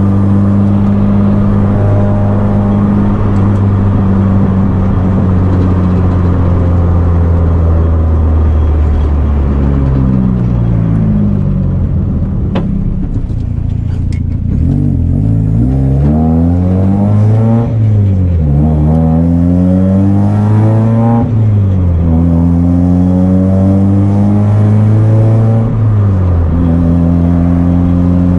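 Mazda Miata's freshly rebuilt inline-four engine driving: steady revs at first, then the revs fall away, and from about halfway through it revs up and drops back several times through gear changes before settling to steady revs again, with a last drop near the end.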